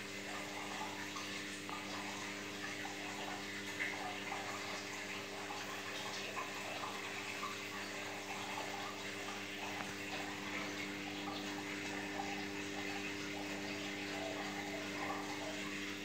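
Aquarium water circulating and splashing steadily from the tank's filter, with a steady low hum from the pump motor.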